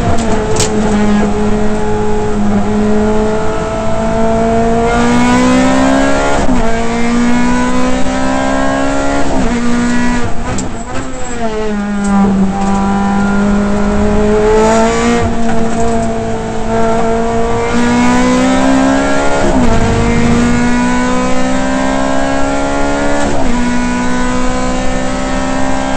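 Ferrari F430 GT race car's V8 engine at racing speed, heard from inside the cockpit: its pitch climbs under acceleration and drops sharply at each gear change, several times over. About ten seconds in it falls away and then climbs back as the car slows for a corner and accelerates out.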